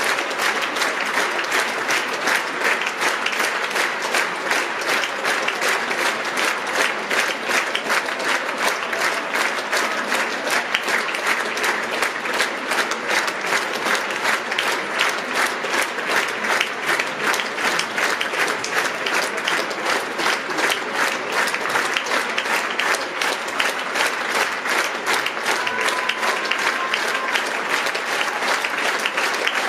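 Large theatre audience applauding at a curtain call, a dense, steady clapping that neither builds nor dies away.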